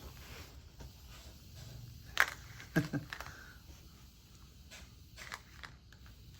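Small white stones clicking and clattering against a toy bulldozer as it scoops and moves them: a few sharp clicks about two to three seconds in, then a few fainter taps.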